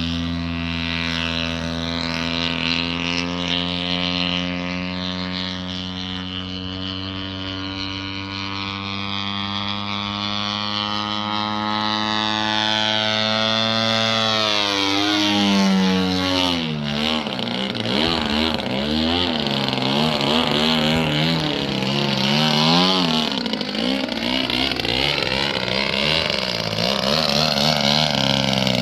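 Radio-control aerobatic model plane's engine and propeller running. The note holds nearly steady for about the first half, then drops and rises again and again as the throttle is worked through the manoeuvres.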